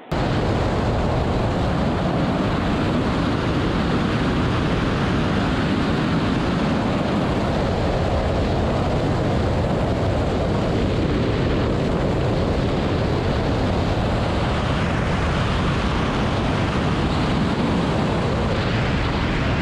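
Loud, steady rush of wind buffeting the microphone, cutting in suddenly at the start and holding level throughout.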